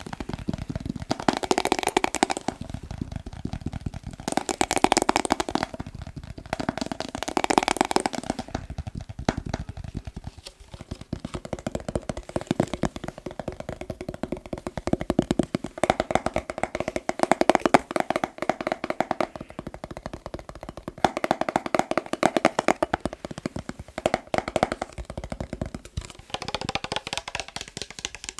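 Fast, continuous tapping on a glass mason jar, a dense stream of quick taps that swells and eases in loudness.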